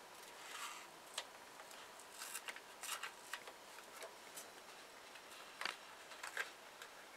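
Faint rustling and scratching of adhesive foam weatherstrip being handled and pressed along a window frame, with a few sharp little clicks.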